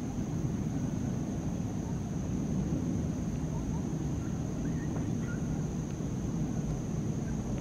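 Distant Boeing 737-500 jet engines, CFM56 turbofans, giving a steady low rumble as the airliner flies its approach, under a steady high thin whine. A few faint chirps come in around the middle.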